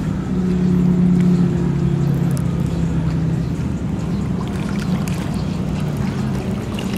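Motorboat engine running with a steady low drone that eases off a little about halfway through.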